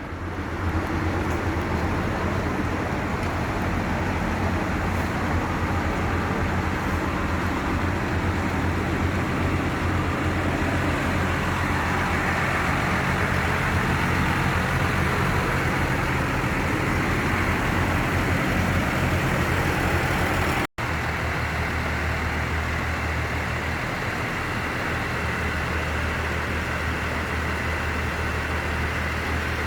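Bus engine running with steady road and traffic noise. The sound cuts out for an instant about two-thirds through, then carries on slightly quieter.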